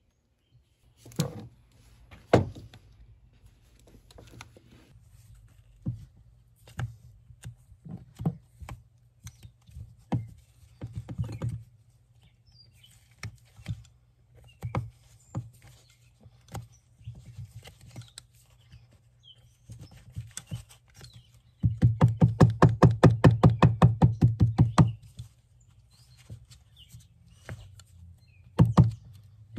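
Shoemaker's hammer tapping a Celastic toe stiffener down over a wooden shoe last. First come scattered single taps and knocks, then about two-thirds of the way in a rapid, even run of about five taps a second lasting about three seconds, and another short run near the end.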